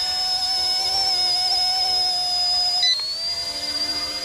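The brushless motors and ducted tail fan of a small RC scale helicopter whine steadily as it descends under its automatic landing mode. The whine steps down a little in pitch about three seconds in.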